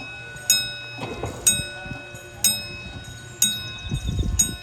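Warning bell striking about once a second, five times, each strike ringing on. It signals that the bridge is closing.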